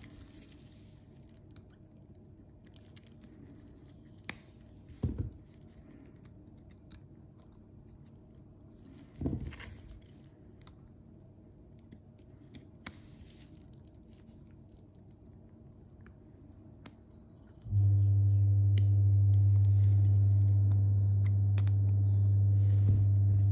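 Small metal tools handled on a watchmaker's bench: sparse light clicks and a few knocks. About eighteen seconds in, an electric bench machine switches on with a loud, steady low hum and keeps running.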